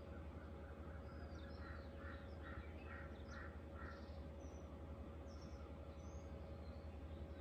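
Faint wild birdsong: scattered short high chirps, with a run of about five quick repeated calls between two and four seconds in, over a steady low hum.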